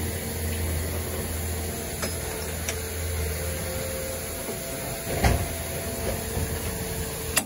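Long torque wrench being pulled on a truck's differential pinion-yoke nut at a 450 setting, with a sharp click about five seconds in and another near the end, over the steady low drone of an engine running.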